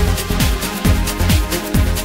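Electronic music with a steady fast beat, a little over two beats a second.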